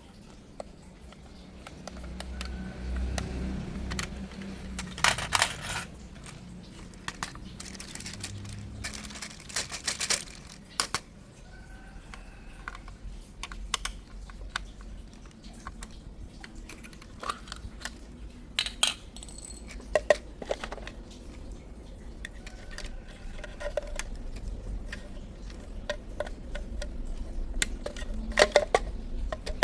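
Toys and their packaging being handled: scattered sharp clicks, taps and short rustles of plastic and cardboard, irregular and spread throughout.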